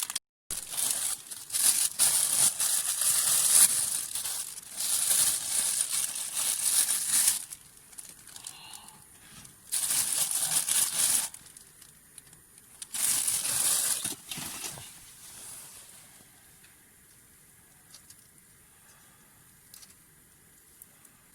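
Crinkly rustling of material being handled, in three or four bursts of a few seconds each through the first half, then fading to faint sound.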